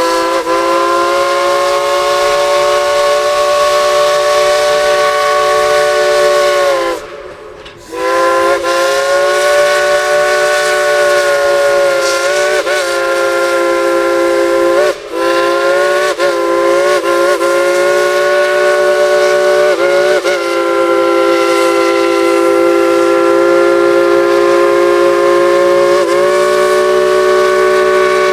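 Steam locomotive chime whistle blown in long blasts, several tones sounding together over a steam hiss. It stops for about a second near seven seconds in, then sounds again for a long time. Its pitch slides and wavers repeatedly as the whistle valve is worked, and it dips briefly near the middle.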